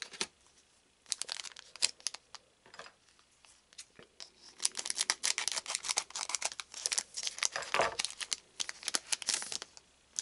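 A Mythik TCG Twilight Immortal booster pack's wrapper being torn open and crinkled by hand. A few sharp crackles come about a second in, then dense crinkling and tearing runs from about four and a half seconds until near the end.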